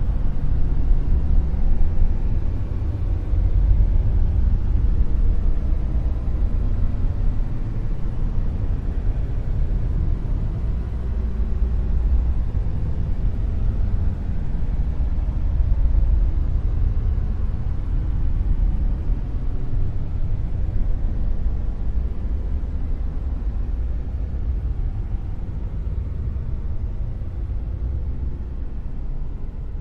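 Dark noise: a steady, deep rumble of noise, heaviest in the bass, swelling and easing slowly and getting a little quieter near the end.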